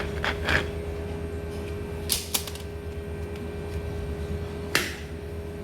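A few sharp clicks and knocks of hard parts being handled, over a steady low hum.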